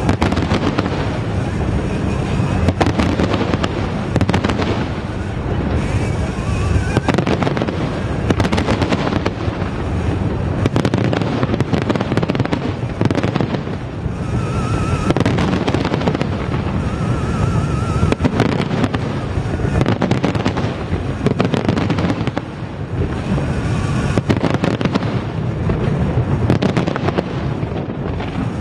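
Large fireworks display: a dense, continuous barrage of aerial shell bursts and crackling, with no pauses, and brief warbling whistles now and then.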